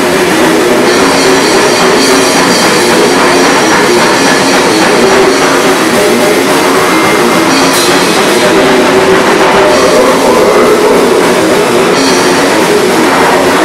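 Live punk rock band playing: electric guitar, bass guitar and drum kit, loud and steady.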